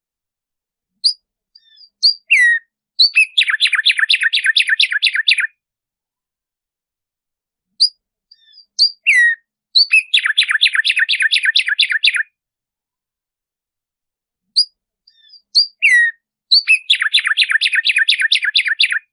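Black-striped sparrow (tumba yegua) singing three songs about seven seconds apart. Each song starts with a few separate notes and a falling slurred note, then runs into a fast, even series of notes lasting about two seconds.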